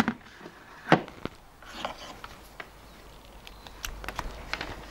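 A plastic bucket and its electrical cord handled on a wooden workbench: a couple of knocks about a second in, then light rubbing and scattered small clicks.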